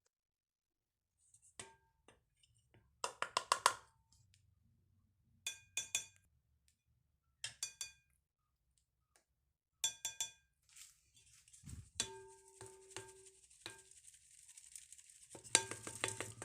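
A utensil clinking against a ringing bowl in short bursts of quick taps, as when mixing ingredients. In the second half a steady rustling hiss joins the taps, and a loud run of clinks comes near the end.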